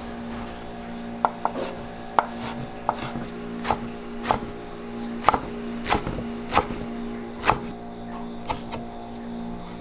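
Chef's knife slicing and chopping leafy greens on a wooden cutting board: about a dozen sharp knocks of the blade on the board, irregularly spaced, over a steady low hum.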